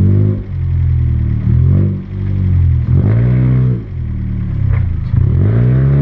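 Car engine and exhaust under acceleration, the pitch rising and dropping back several times with short dips in loudness between pulls.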